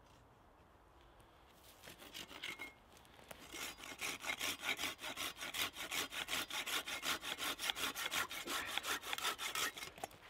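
Hand saw cutting through a thin wooden branch. A few tentative strokes come about two seconds in, then quick, even back-and-forth strokes run on until just before the end.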